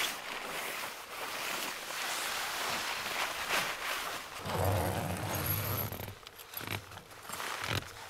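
Nylon shell of a down jacket rustling and swishing as it is pulled on and settled, with a zipper being worked. A dull low rumble about halfway through, then quieter scattered rustles.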